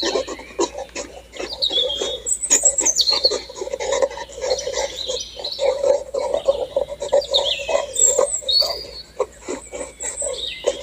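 Wild animal calls: high bird chirps and whistles over a dense, rapid croaking chatter.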